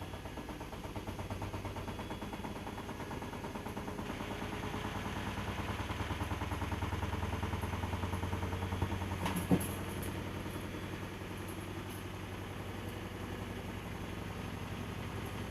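Drum-type washing machine running, a steady motor hum that swells through the middle, with one sharp knock about nine and a half seconds in.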